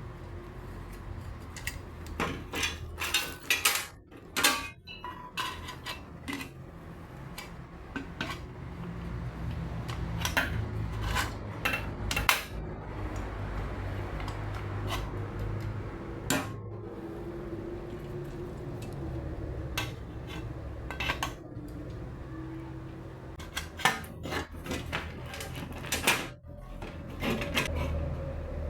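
Metal parts of a universal TV wall bracket clinking and clattering as they are handled and unpacked, in irregular sharp knocks.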